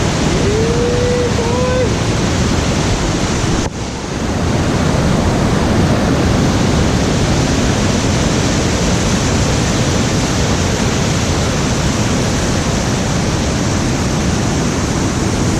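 Steady rush of fast-flowing creek water running high with snowmelt. The sound briefly drops out about four seconds in.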